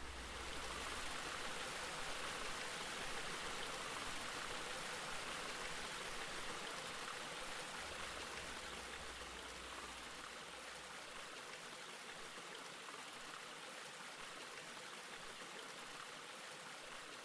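A steady rushing hiss like running water, with a low rumble beneath it that drops away about eleven seconds in; the whole sound slowly fades.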